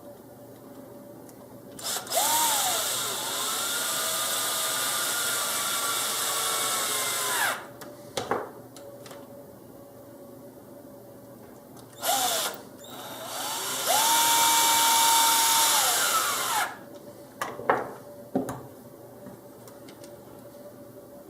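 Cordless power driver running twice for several seconds each, driving machine screws; its motor whine rises as it spins up and falls as it stops. A few short clicks and taps follow each run.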